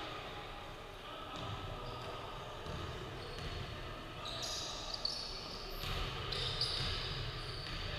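Basketball game on a hardwood court: a basketball bouncing with dull thuds and sneakers squeaking on the floor, the squeaks coming in short runs around the middle and again near the end.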